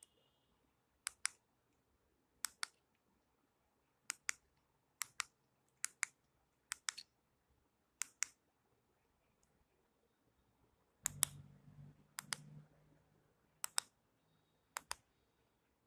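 Small plastic buttons on a bike alarm's remote key fobs being pressed: about a dozen sharp clicks, each a quick double click of press and release, about one every second or so. A brief low hum comes in about two-thirds of the way through.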